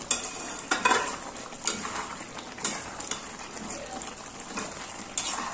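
Chicken braising in a thick korma gravy in a metal pan, sizzling and bubbling while a metal spatula stirs it. The spatula scrapes and clinks against the pan a handful of times.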